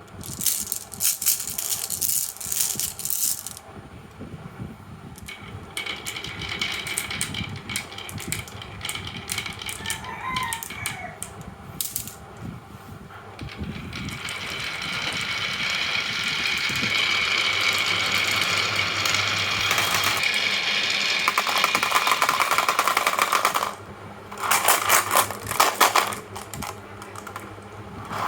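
Marbles rolling down a marble run and clattering along its wooden tracks: bursts of rapid clicking and rattling at the start and again near the end, with a long steady rolling run in the middle.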